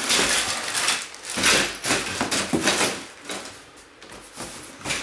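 Rustling and clattering of shoes, hangers and bags being shifted around inside a packing box, in several bursts, quieter a little before the end.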